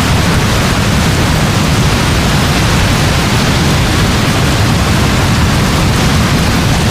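Heavy rain falling steadily: a dense, even hiss with a strong low rumble underneath and no distinct thunderclap.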